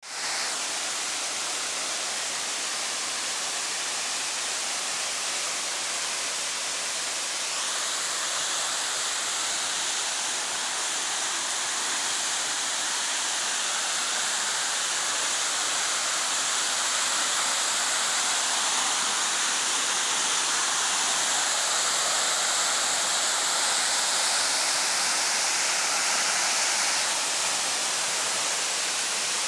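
Waterfall rushing: a steady hiss of falling water that grows slightly louder in the second half.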